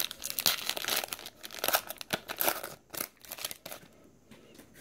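Foil wrapper of a trading-card pack crinkling and tearing as it is pulled open. A dense run of crackles that dies down after about three and a half seconds.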